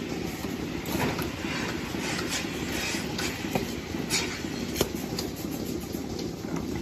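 Milking parlour machinery running with a steady rumble, with sharp clicks and clanks from the metal milking cluster being handled and attached to a cow's udder.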